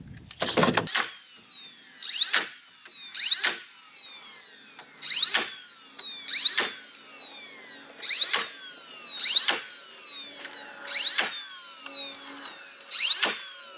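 Hammer driving nails into wooden wall studs: about nine sharp blows, often in pairs about a second apart, each with a brief ring.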